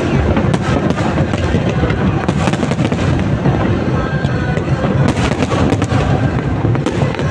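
Fireworks bursting in a dense, continuous barrage of rapid pops and crackles over a steady low rumble, with music playing underneath.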